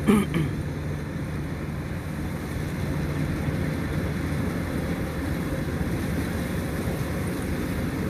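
Kubota DC-105X rice combine harvester running as a steady, distant drone while it cuts, with some wind on the microphone. A brief falling-pitched sound comes at the very start.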